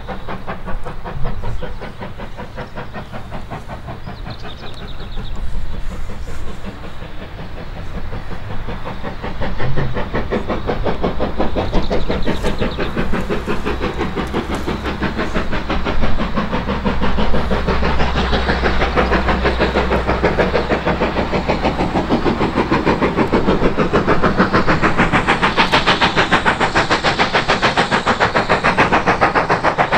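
Steam locomotive hauling a passenger train, working hard with a rapid, even chuff of exhaust beats that grows louder as it approaches.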